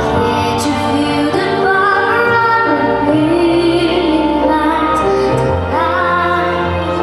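A female solo voice singing a slow melody over instrumental accompaniment, holding long notes with vibrato.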